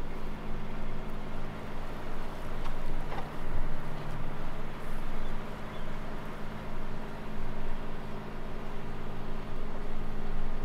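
Sailing yacht's engine running steadily at constant revs while motoring in calm water.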